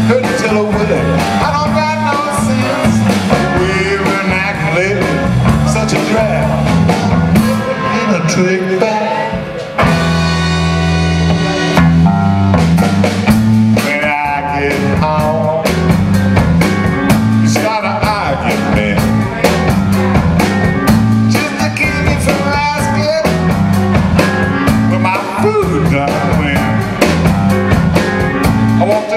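Live blues band playing with electric guitars and a drum kit. About ten seconds in the band drops out briefly and a chord rings on for about two seconds before the full band comes back in.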